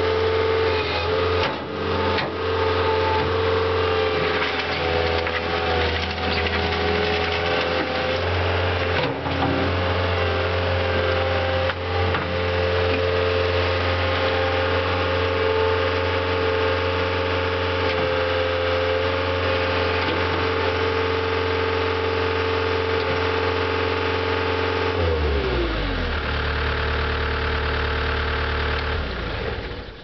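Cat compact track loader's diesel engine running steadily, with a few sharp knocks in the first half. About 25 seconds in the engine speed drops and it settles at a lower pitch.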